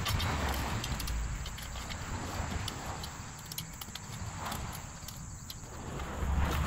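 Metal bow rake dragged through loose soil and small stones: an irregular run of scrapes and clinks as the tines catch grit and pebbles while the bed is graded.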